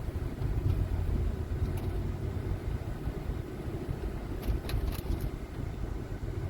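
Steady low rumble of a vehicle's engine and road noise heard from inside the cab while driving, with a few faint clicks about four and a half to five seconds in.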